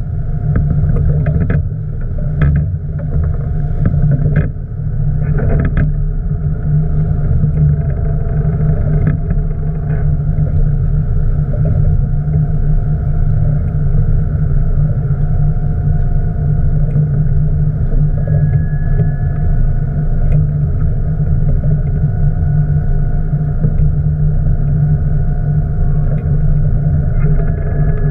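Boat engine running steadily with a low drone, with a few sharp knocks in the first several seconds.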